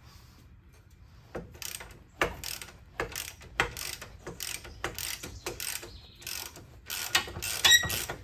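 Hand ratchet clicking as it loosens the lower rear shock-absorber bolt. Each back-swing gives a quick burst of pawl clicks, about three strokes a second, starting about a second in.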